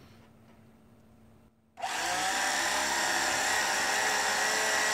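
A Syma X8C quadcopter's four new brushed motors and propellers spin up suddenly about two seconds in, with a short rise in pitch, then run on in a steady whine with propeller hiss. The motors are being run in to wear in their new brushes.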